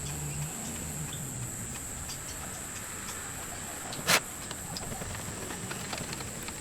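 Faint rubbing of a polishing rag in circles over a plastic safety-glasses lens, working in cutting compound, with small scattered ticks. There is one sharp click about four seconds in, and a steady high-pitched whine underneath.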